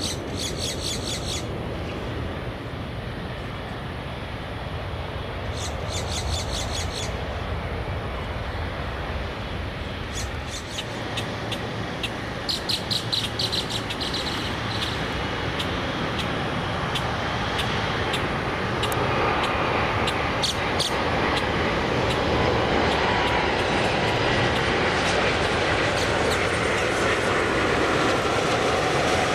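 Jet airliner noise, a steady rush that builds over the last ten seconds, with a faint engine whine that bends in pitch near the end. Three short bursts of rapid high chirps cut in near the start, about six seconds in and about twelve seconds in.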